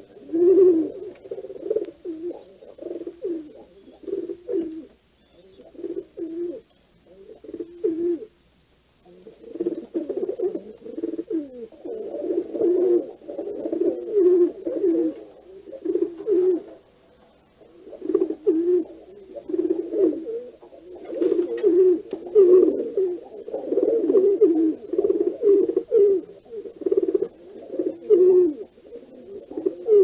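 Pigeons cooing, repeated low coos in long runs broken by a few short pauses.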